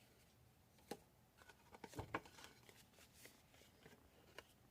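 Faint handling of cardstock: light rustles, scrapes and a few small clicks as a folded card panel is pushed to make it slide through, loudest around two seconds in. The panel is sticking rather than sliding easily.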